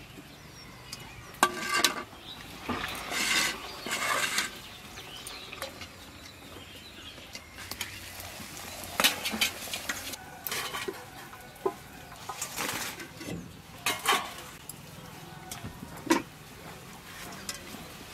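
Stainless-steel bowls, plates and a wire skimmer clinking and knocking against each other, in scattered sharp clatters with a few longer scraping stretches.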